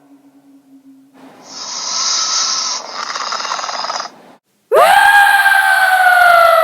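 Dinosaur creature sound effects: a hiss lasting about three seconds, then, after a brief pause, a loud drawn-out cry that slowly falls in pitch.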